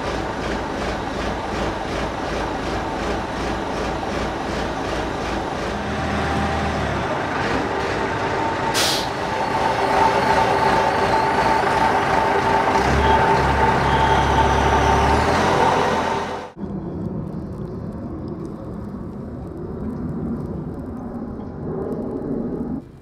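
Mobile crane's diesel engine running while it lifts the catamaran, a loud steady drone with deep rumbling that swells twice. It cuts off suddenly about two thirds of the way through, leaving quieter sound.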